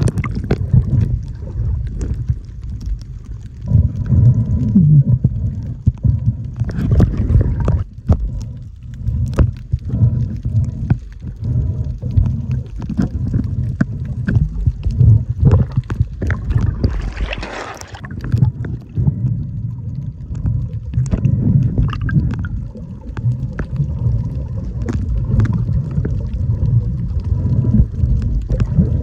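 Water moving around a camera, most likely one held underwater or at the surface while snorkeling. It gives a muffled low rumble and gurgling that swells and fades, with many sharp clicks and crackles scattered through it.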